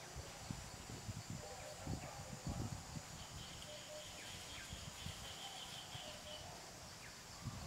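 Woodland ambience with faint bird chirps and a high, thin trill lasting about three seconds in the middle, over a steady background hiss with scattered low thumps.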